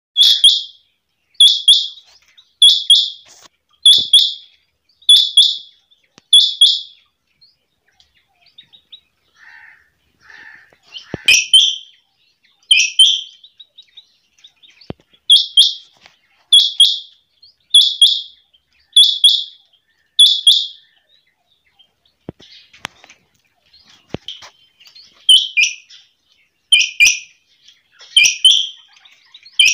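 Caged female quail calling: sharp, high, repeated calls of two or three quick notes each, about one call every 1.2 seconds, in runs broken twice by pauses of a few seconds.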